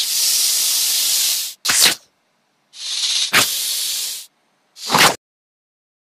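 Cobra hissing sound effect: two long, loud hisses, each followed by a short, sharp burst.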